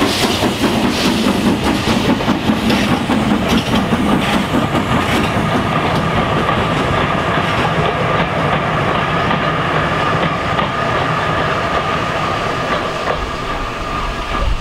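GWR King class 4-6-0 No. 6023 'King Edward II' steam locomotive passing, its exhaust beats fading away over the first few seconds. Its train of Victorian coaches then rolls by with a clickety-clack of wheels over rail joints and a steady high ring, dying away near the end.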